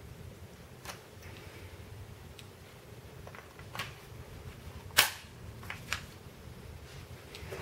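A few sharp clicks and clacks as a Gletcher APS Stechkin airsoft pistol and its wooden holster-stock are handled, with one much louder, sharp click about five seconds in.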